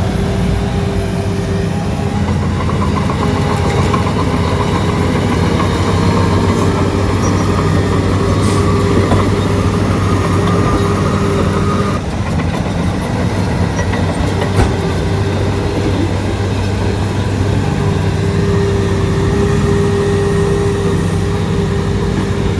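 Shantui DH17C3 crawler bulldozer at work: its diesel engine runs steadily with a higher steady tone above it, and the sound shifts abruptly about halfway through.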